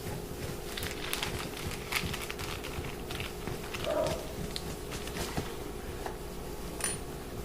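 Small clicks and taps of a fingerboard tool and screws being handled while a pair of fingerboard trucks is mounted, over a steady faint hum, with a brief whine about four seconds in.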